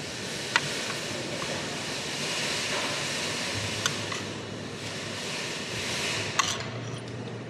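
Metal spoon and fork clinking sharply against a plate three times while scooping and mixing rice, over a steady background hiss.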